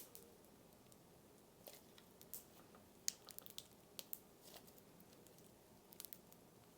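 Cereal slime being slowly pulled and pressed by hand, giving faint, scattered little crackles and pops, with a small cluster about halfway through.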